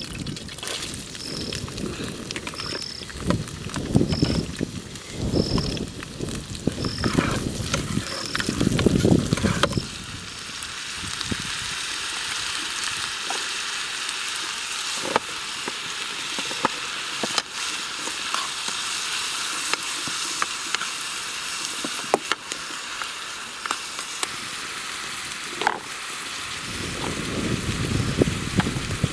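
Food sizzling and crackling as it fries in a pan, a steady hiss. Low knocks and rumbles of handling come over it in the first ten seconds and again near the end.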